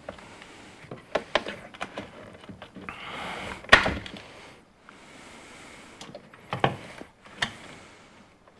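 Scattered plastic clicks and knocks as a stubborn tail-light bulb socket is twisted and worked in the 4th-gen Pontiac Firebird's tail-light housing, with a short scrape and the sharpest click a little past halfway.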